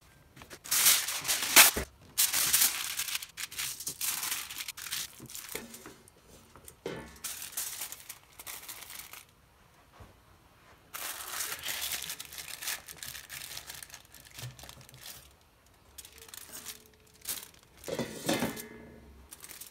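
Aluminium foil crinkling and rustling in several bouts as a folded strip is handled and shaped into a lifting sling, with a few sharp clicks, the loudest about two seconds in.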